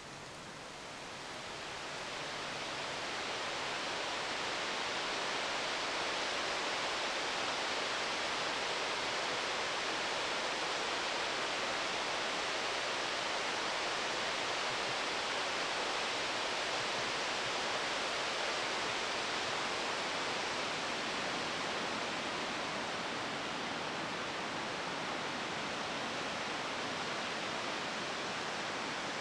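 Steady rushing of Taughannock Falls, a tall waterfall pouring into its gorge. The sound swells over the first few seconds, then holds even.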